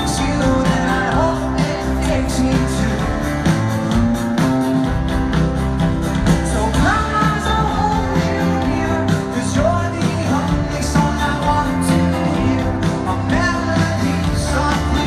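Live rock band playing through a large PA, heard from far back in the audience: strummed acoustic guitar and drums, with some singing.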